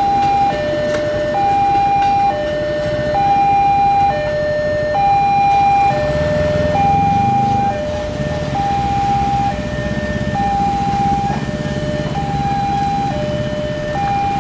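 Railway level-crossing warning alarm sounding a two-tone electronic chime, a higher note and a lower note alternating about once a second. Vehicle engines run beneath it and rise in pitch from about six seconds in.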